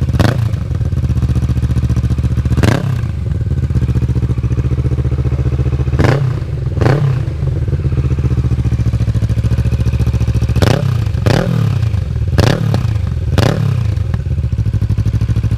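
Kawasaki Ninja 650's parallel-twin engine breathing through an Akrapovic titanium full exhaust, idling steadily and blipped about eight times, each rev rising and dropping straight back to idle, some in quick pairs.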